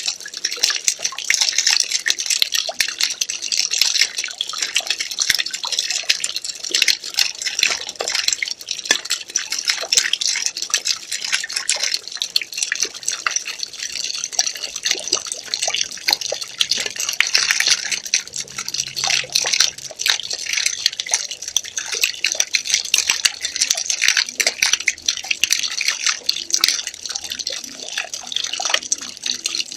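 Water pouring, a continuous splashing trickle that flickers in level without a break.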